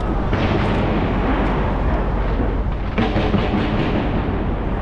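Barrage of fireworks bursting and crackling without a break, with fresh volleys starting about a third of a second in and again about three seconds in.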